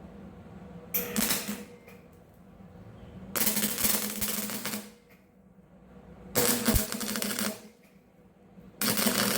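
Wire-feed MIG welder laying short bursts of weld onto steel to build up material: four crackling bursts, each lasting about one to one and a half seconds, with short pauses between.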